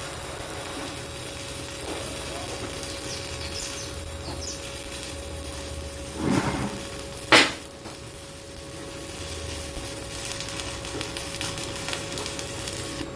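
Stick (arc) welding with a stainless-steel electrode: a steady hiss with fine crackle as weld is laid on to build up a worn bearing seat of a Fuller transmission. About six seconds in comes a short knock, then a sharp, louder clank a second later.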